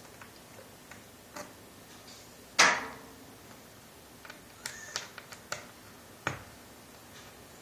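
Small clicks and taps of a screwdriver and tiny screws being worked out of a laptop's LCD panel, with one louder knock about two and a half seconds in and a quick run of light clicks in the second half.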